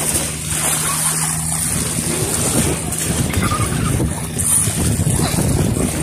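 Wind buffeting the microphone over small sea waves washing at the shoreline, a steady rushing noise with an uneven low rumble.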